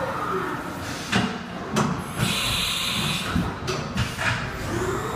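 Haas CNC vertical mill machining aluminium under flood coolant: steady hissing spray with machine noise, several sharp clatters, and a brief higher whine about two seconds in.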